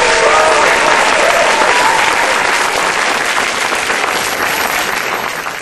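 Audience applauding at the end of a stage dance performance, loud and steady, tapering off near the end.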